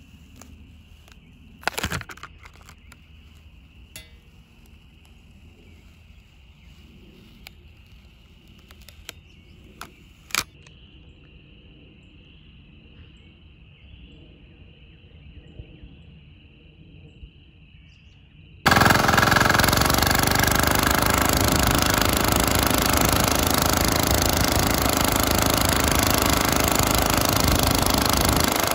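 Faint handling sounds with a couple of sharp clicks. About two-thirds of the way in, the loud, steady running of a small 196cc single-cylinder diesel engine driving a go-kart cuts in suddenly.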